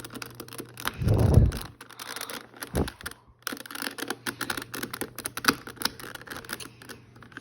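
Plastic clicking and rattling of Rubik's Cube pieces being twisted and pressed while the last edge piece is worked into the cube, with a louder low thump about a second in and a shorter one a couple of seconds later.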